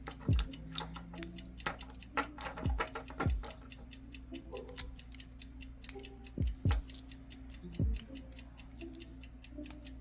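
Lock pick and tension wrench working the pins of a lock: rapid small metallic clicks and ticks throughout, with a few dull knocks from handling the lock.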